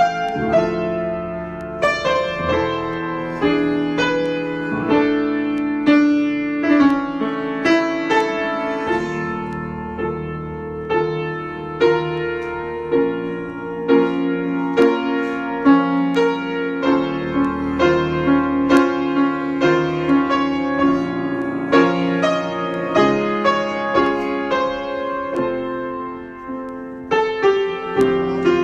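Solo piano improvisation: a run of struck notes and chords, each sounding on after it is played, at a fairly even, lively pace.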